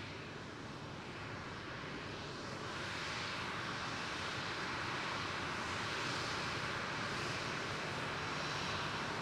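Jet airliner's engines heard as a steady rushing noise, growing louder about three seconds in and then holding steady.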